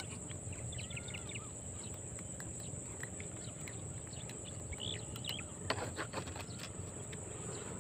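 Quiet riverside ambience with a few faint bird chirps over a thin, steady high whine, and some soft clicks.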